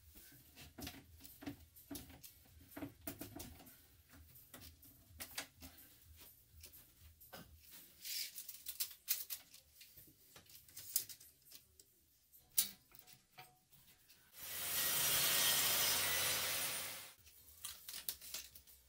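Workshop handling of boards and bar clamps: scattered knocks and clicks of wood and clamp hardware, then a loud, even hiss-like noise lasting about two and a half seconds near the end.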